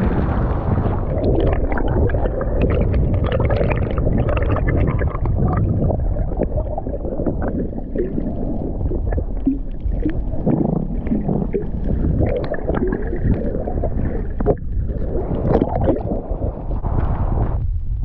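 Loud, continuous rumbling wind buffeting the microphone, with water gurgling and sloshing along the rocky shore and short crackles throughout.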